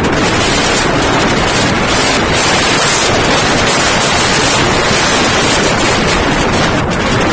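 Typhoon wind buffeting the microphone over rough surf, a loud, steady rushing noise.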